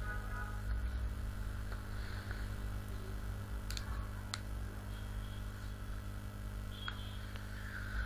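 Steady low electrical hum from the recording setup, with a few faint clicks.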